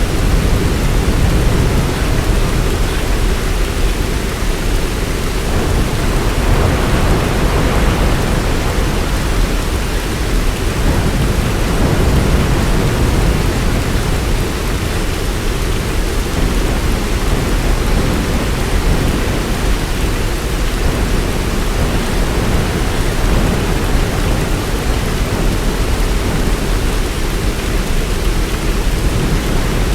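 Heavy rain falling steadily, a dense even hiss with a deep low rumble beneath it that swells gently now and then.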